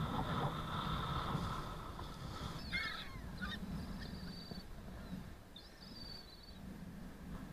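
Gulls calling: a few short squawks about three seconds in and a longer call near six seconds. Underneath is a low wind rumble on the microphone, louder at first.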